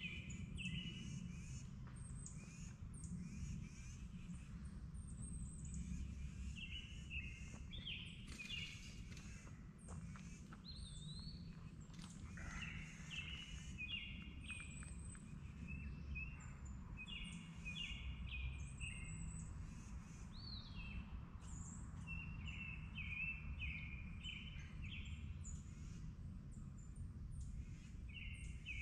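Several songbirds chirping and singing on and off, short whistled notes from more than one bird, over a low steady rumble.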